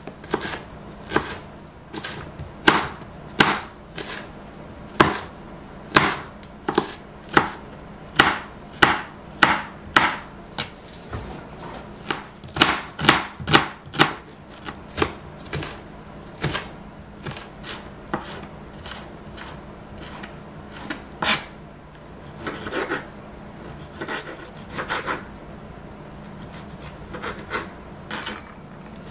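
Kitchen knife chopping bell pepper and onion on a cutting board: separate sharp strikes on the board, irregular, with a quicker run about a third of the way in. Later the cuts turn softer as cherry tomatoes are sliced.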